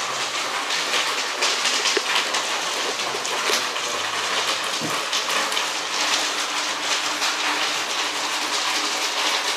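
Rain falling hard: a steady, dense patter of drops.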